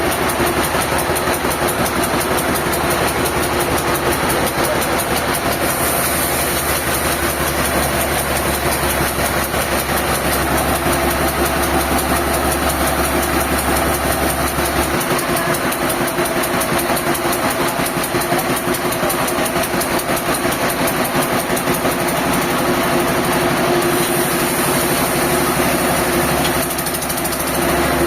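Diesel engine running steadily, with a short dip in loudness near the end.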